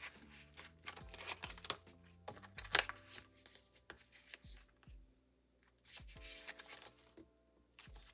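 Soft background music with held chords, under the crinkling rustles and light taps of photocards being slid into plastic binder sleeves, the sharpest rustle about three seconds in.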